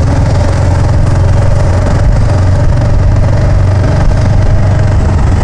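Motorcycle engine running steadily while riding at low street speed, heard from a camera on the bike, with a loud, deep, even rumble and a faint steady hum.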